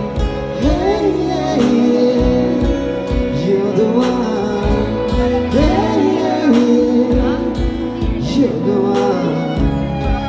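Live band performing a pop song: a woman sings the melody into a microphone over keyboard, drums and guitar, with the drum strikes cutting through.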